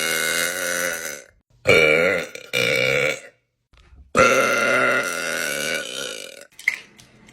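A young woman burping in a string of belches: a long drawn-out burp ends about a second in, two short ones follow, then another long burp of over two seconds.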